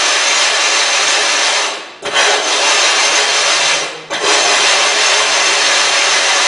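An aluminum oxide water stone being rubbed flat against an abrasive flattening surface: a steady, loud scraping that breaks off briefly twice, about two and four seconds in.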